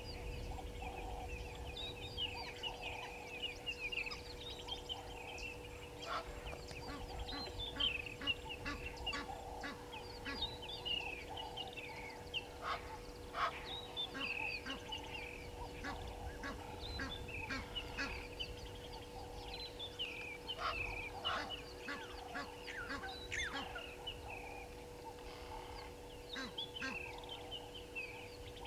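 Egyptian geese calling: a long run of short, falling calls one after another, over a steady low hum.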